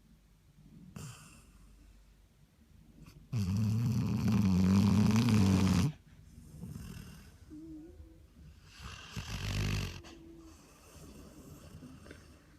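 A dog snoring. One long, loud snore with a wavering low pitch starts about three seconds in and lasts over two seconds, between fainter snoring breaths.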